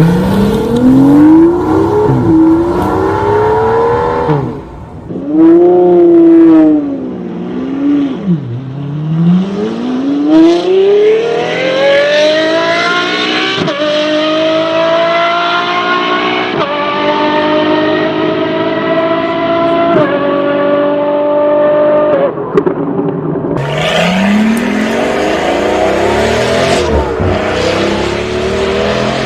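V12 sports car engines revving and accelerating hard. The loud exhaust note climbs in pitch through a long pull, with a sudden drop at each of about three upshifts in the middle. Near the end another run starts low and climbs again.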